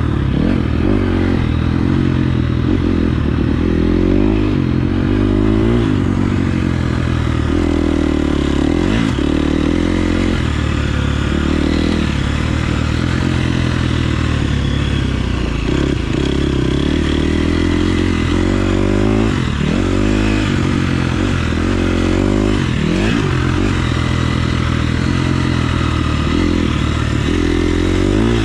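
KTM 350 SX-F's single-cylinder four-stroke engine revving up and dropping back again and again as the throttle is opened and closed around a motocross track.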